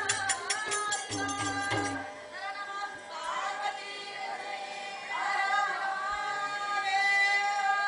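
Music with singing voices over steady held tones. A quick, even percussion beat of about five strokes a second plays along and stops about two seconds in.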